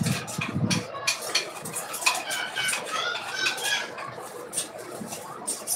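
Kitchen utensils and plastic molds clicking and clinking as they are handled, with a short run of high squeaky tones around the middle.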